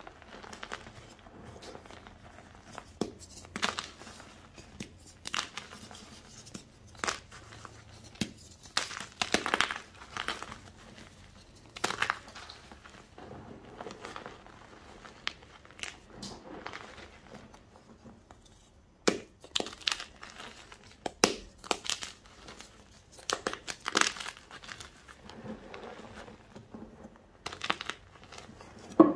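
Hands squeezing and crumbling soft blocks and powder of gym chalk: irregular soft, crunchy crumbles, with sharper, louder crunches coming in a cluster past the middle and once near the end.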